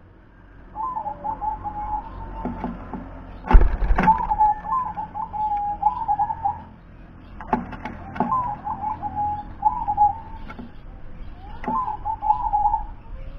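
Zebra dove (perkutut) cooing in four phrases, each a quick string of chopped notes. A loud thump comes about three and a half seconds in, with a few fainter knocks between the phrases.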